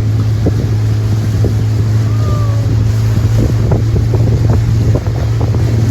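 Motorboat engine running at a steady low drone while under way, with irregular gusts of wind on the microphone.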